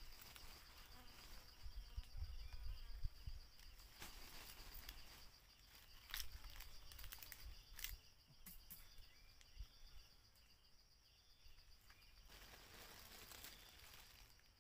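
Faint insects trilling steadily in the background, a high continuous pulsing chirr, with a few sharp knocks of a knife on the wooden stump used as a chopping block.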